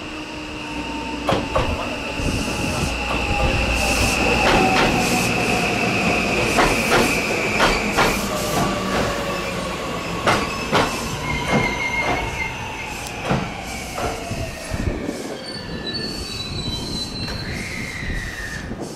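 JR West 521 series electric train's Mitsubishi IGBT-VVVF inverter whining, several tones sliding slowly down in pitch as the train slows into the station, with wheels clacking over rail joints.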